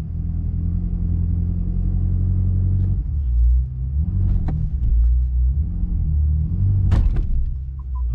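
BMW F10 M5's twin-turbo V8 running under load as the car is driven against a locked wheel, the revs rising and falling. There are sharp knocks about four and a half seconds in and, loudest, about seven seconds in. The wheel is bound by overlong lug bolts screwed into the hub, not by a seized brake.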